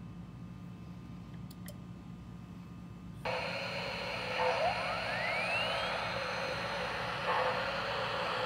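MTH Rail King O-gauge steam locomotive's sound system coming on: a low hum, then about three seconds in a steady steam hiss starts suddenly, with a whine rising in pitch over it and a few brief louder surges.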